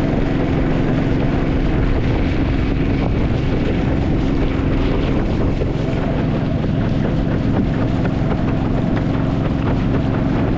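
Motorboat engine running steadily under way, with wind buffeting the microphone.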